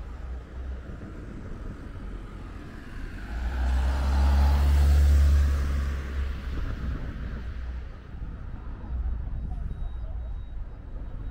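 A motor vehicle passing close by, its engine hum and tyre noise swelling to a peak and fading away over about four seconds, over steady low background rumble.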